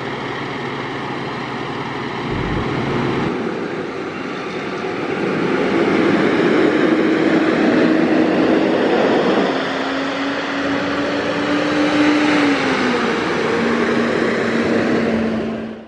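A heavy vehicle's engine runs and gets louder, its engine note holding steady and then stepping down in pitch twice, with a low thump about two seconds in.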